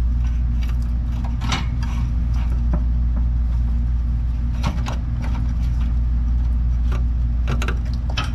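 A steady low hum throughout, with a few sharp metallic clicks and knocks from hand work on the brake pressure regulator under the car, a cluster of them near the end.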